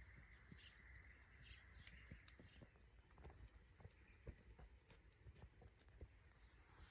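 Faint, irregular crackling and ticking of a small wood fire, with a few soft bird chirps in the first second or so.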